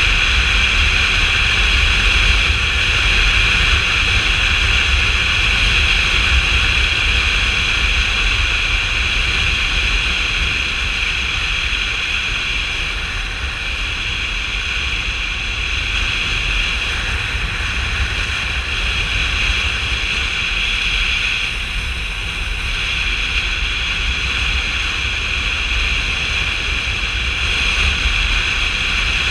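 Motorcycle cruising at steady speed: wind rushing over the camera and a continuous engine drone, with no change in pace.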